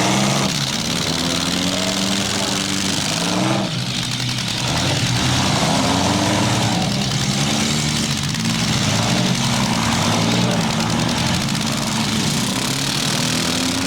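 Several small compact-car engines in a mini-car demolition derby revving and idling together, their pitches rising and falling unevenly.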